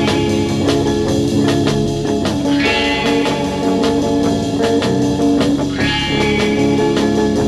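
Background music: a guitar-led track with drums keeping a steady beat.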